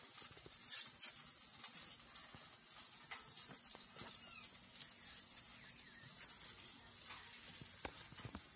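Small dogs' claws clicking and scuffling on a tiled floor: faint scattered ticks over a steady hiss, with a faint short squeak about four seconds in.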